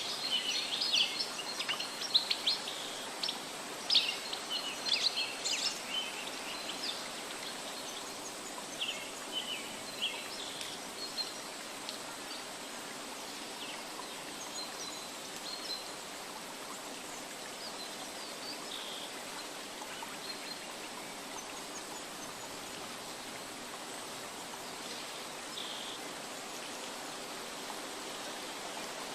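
Steady rushing water with birds chirping over it: many quick chirps in the first dozen seconds, then only a few scattered calls.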